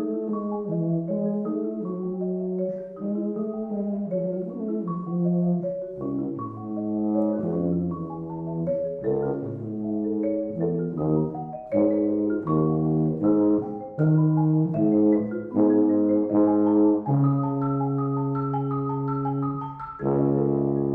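Marimba and tuba playing a duet. The marimba, played with four mallets, sounds many quick struck notes, while the tuba holds long low notes beneath them.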